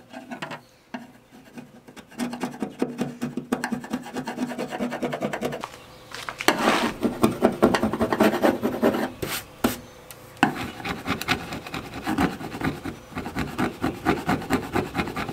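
Flathead screwdriver scraping old Wetlander bottom coating off a riveted aluminum jon boat hull in quick, repeated strokes. The scraping is loudest around the middle, with a brief pause a few seconds before the end.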